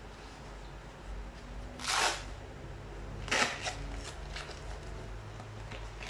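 Handling noise: a few short rustles and scrapes, the loudest about two seconds in and another just after three seconds, over a low steady hum.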